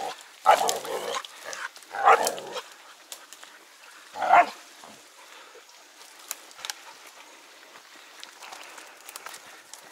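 Hunting dogs barking: three loud, short bouts in the first five seconds, then only faint rustling in the brush.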